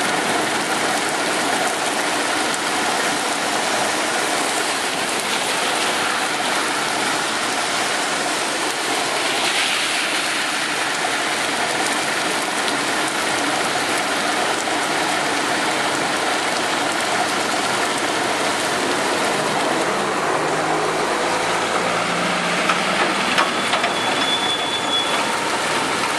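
Steady rain falling on a city street and pavement, an even hiss throughout. About three-quarters of the way through, the low running of a passing vehicle's engine comes in under it.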